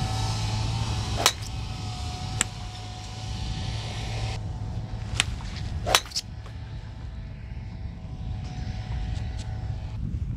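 A driver's head striking a teed golf ball with one sharp crack about six seconds in. Fainter clicks of other golf shots come earlier, over a steady low hum.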